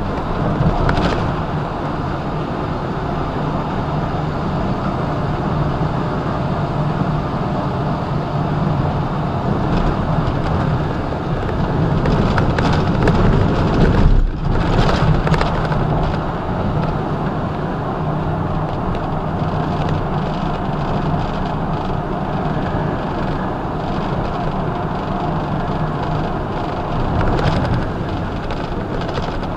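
Semi truck cruising at highway speed: steady engine drone with tyre and road noise, heard from inside the cab. The sound briefly cuts out about halfway through.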